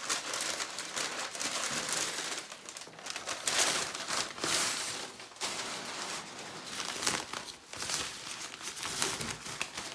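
Packaging crinkling and rustling in irregular bursts as items are pulled out and unwrapped by hand, loudest about three and a half to four and a half seconds in.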